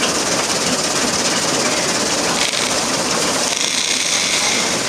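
1920s chaff cutter running, chopping hay into chaff: a loud, steady, rapid mechanical clatter. About three and a half seconds in, the sound shifts higher.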